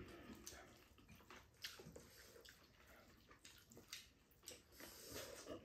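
Faint eating sounds: wet noodle slurping and chewing, with a few light clicks of chopsticks and a spoon against bowls.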